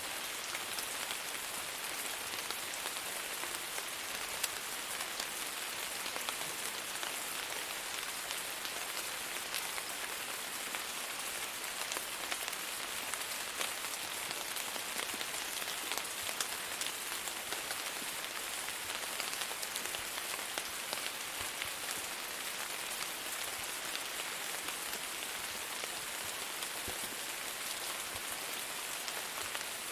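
Steady rain falling on a surface, an even hiss with many small drop ticks and no thunder.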